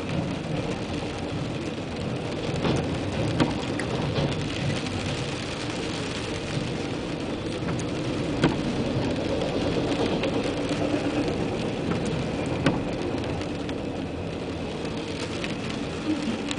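Rain pattering on a car's roof and windshield, heard from inside the car, over the steady rumble of a freight train's autorack cars rolling past, with a few sharp clicks scattered through.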